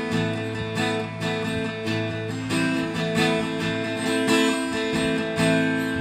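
Yamaha acoustic guitar strummed, its chords ringing with no voice over them. The chord changes about halfway through and again near the end.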